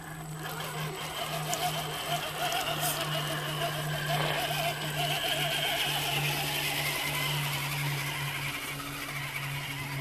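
Electric motor and gear drive of an RC scale crawler whining as it crawls through mud, the pitch wavering with the throttle, over a steady low hum.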